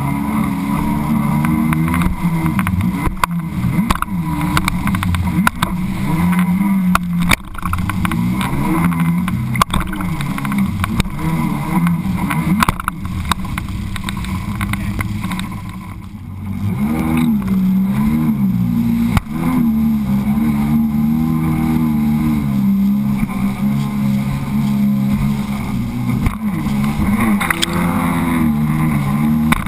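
Sea-Doo personal watercraft engine running at speed, its pitch wavering up and down with the throttle, easing off about halfway through and then picking up again. Short knocks and splashes come from the hull hitting the chop.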